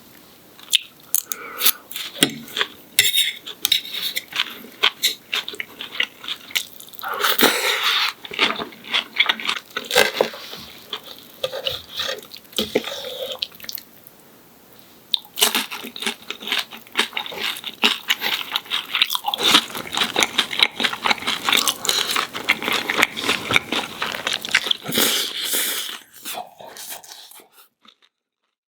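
Close-miked eating: crunchy bites and chewing of fried food, with many quick crackles and clicks. The sound fades out near the end.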